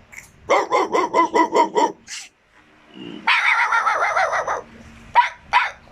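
Recorded dog barking sound effect: a quick run of about seven barks, then a longer wavering whine and two short yips near the end.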